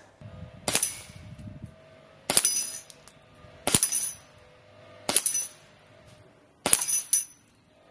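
.25-calibre Gamo Hunter XTR air rifle shots at a steel spinner target: five sharp hits, each a crack closely followed by a metallic clang of the paddle, about a second and a half apart, with the steel ringing between hits.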